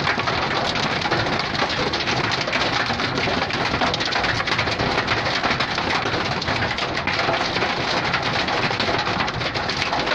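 Hailstorm: hail and heavy rain falling hard, a dense, steady patter of countless small impacts.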